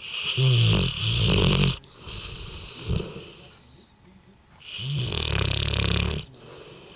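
Bullmastiff snoring in deep sleep: two loud snores with a low rattle, about four seconds apart, and a softer breath between them.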